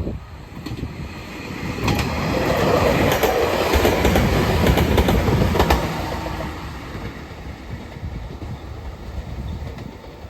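Toyotetsu Atsumi Line 1800-series electric train (set 1803) passing close by, its wheels clacking over the rail joints. The noise builds for about two seconds, stays loudest for the next four, then fades as the train moves away.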